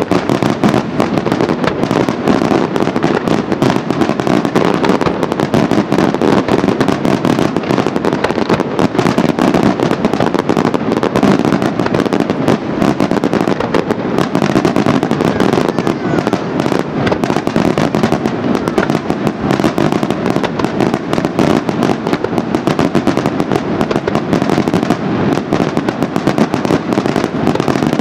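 Daytime fireworks display: aerial salutes and firecrackers going off in a dense, unbroken barrage of rapid bangs and crackling.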